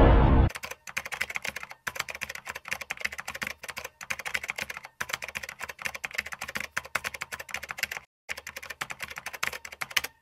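Rapid typing on a computer keyboard, a fast run of key clicks broken by a few short pauses. It comes in just after a loud, deep sound cuts off about half a second in.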